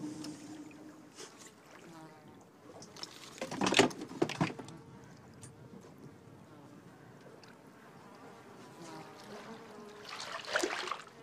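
Rustling and clatter of small objects being handled, loudest in two stretches: about three seconds in and again near the end. A brief low buzz sounds at the start.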